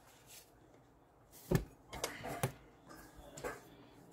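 Oracle cards being handled and set down on a wooden table: a few short taps and slaps of card stock, the sharpest about a second and a half in, then several lighter ones over the next two seconds.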